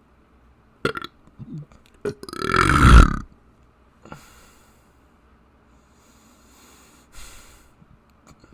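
A person burping: one long, loud belch about two seconds in, lasting about a second, with a short sharp sound a moment before it. Softer breathy noises follow twice.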